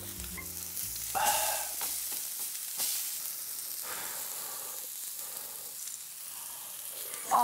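Pork tomahawk and other meat sizzling steadily on a hot maekbanseok (elvan stone) grill slab.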